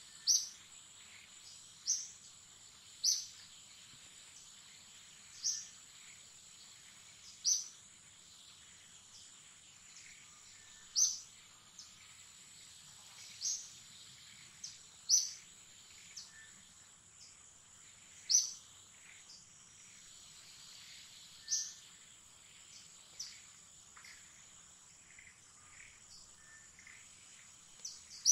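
Forest ambience: a steady, high-pitched insect drone, with short high chirps repeated every one to three seconds. The chirps are most likely a bird's call, and they thin out near the end.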